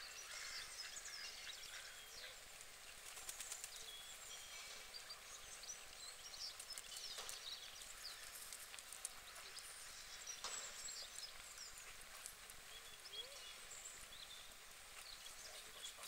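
Faint outdoor lakeside ambience: scattered short chirps and calls of small birds, with a few sharp clicks.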